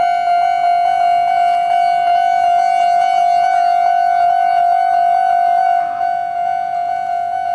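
Japanese level-crossing electronic warning bell ringing: a quick, even run of ringing dings on one steady pitch.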